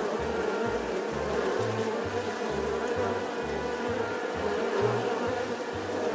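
Buzzing bee sound effect: a steady insect drone.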